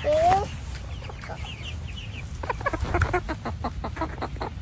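Chickens clucking: a short rising call at the start, a few faint high peeps, then a quick run of short clucks through the second half.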